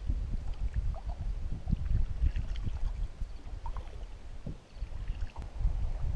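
Canoe being paddled with a wooden paddle: water dripping and splashing with each stroke and small ticks from the paddle and hull, over a steady low rumble.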